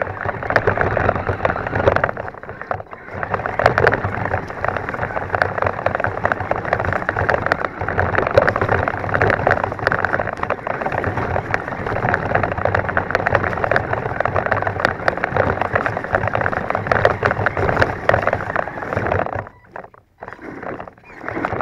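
Himoto 1:10 RC truck driving fast over grass and leaf litter, heard from a camera mounted on the truck: a dense rattle and crackle of the running gear and of twigs, leaves and grass hitting the chassis. It stops abruptly near the end.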